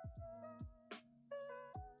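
Quiet background music with an electronic beat: deep kick drums that drop in pitch, light hi-hat ticks and a held synth melody.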